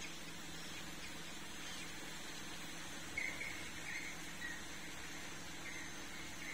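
A few faint, short high chirps from about three seconds in, over a steady low hum.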